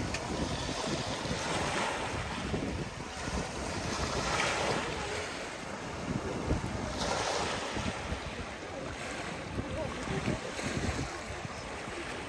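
Wind buffeting the microphone, with a rushing noise that swells and fades every few seconds.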